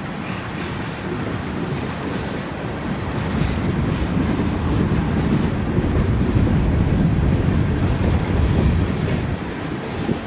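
CSX manifest freight train rolling past: a steady rumble of steel wheels on rail with clicking. It grows louder about four seconds in and eases near the end.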